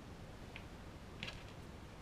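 Quiet room tone with faint handling noise as masking tape is worked onto a small plastic model wagon door, with two light ticks, one about half a second in and a slightly louder one just after a second in.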